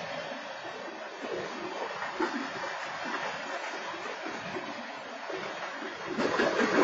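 BNSF freight train rolling past, a steady rushing of wheels on the rails that grows louder about six seconds in.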